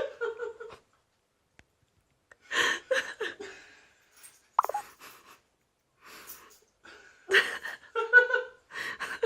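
A person laughing helplessly in wheezing, gasping bursts, with breathless pauses between them.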